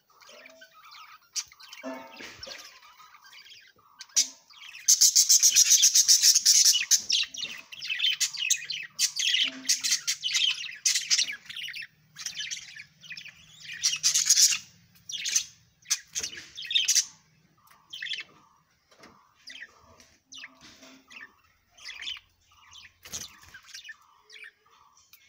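Budgerigars chattering and chirping: short chirps throughout, with a loud run of rapid, scratchy chatter about five to seven seconds in.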